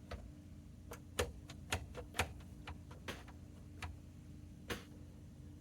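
Irregular light clicks and taps, about a dozen, from hands and tools handling wires and parts inside an oscilloscope chassis being taken apart, over a steady low hum.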